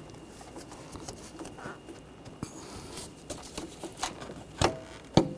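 Hard plastic coolant reservoir being worked loose and slid up out of its mount: faint scraping and rubbing of plastic, with scattered clicks and a few sharper knocks in the last two seconds.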